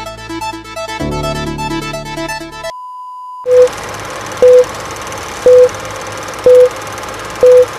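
Electronic background music ends about a third of the way in, followed by a short steady tone. Then an old-film countdown leader sound effect plays: a steady hiss with a loud, short beep once a second, five times.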